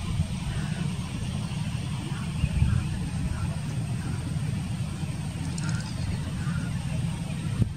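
Low, unsteady rumble of a distant jet airliner on final approach, mixed with wind buffeting the microphone.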